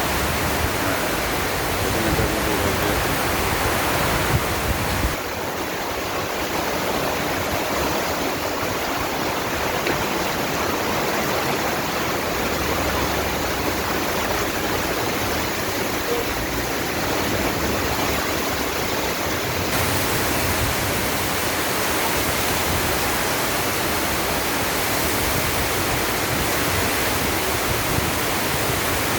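Heavy rain pouring down steadily as a dense, even hiss, with sudden changes in tone about five seconds in and again near twenty seconds.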